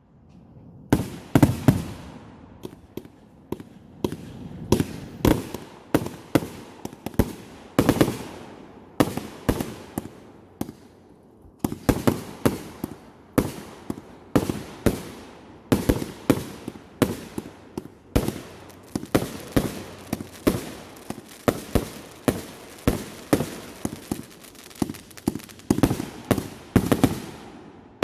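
Consumer fireworks going off in rapid succession: sharp bangs, several a second, with little let-up and a slightly sparser stretch about a third of the way in.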